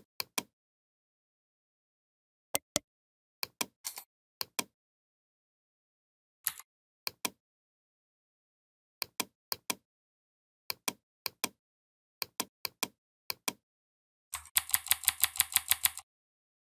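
Sharp computer mouse clicks, mostly in quick pairs a second or two apart, then a fast run of about a dozen clicks near the end.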